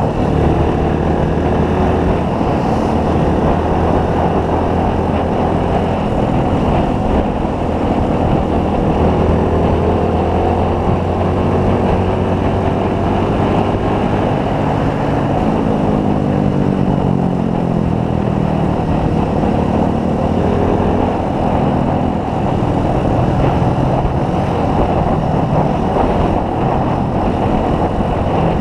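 Motorcycle engine running at road speed under a steady rush of wind and road noise. The engine note rises and falls several times as the rider changes speed.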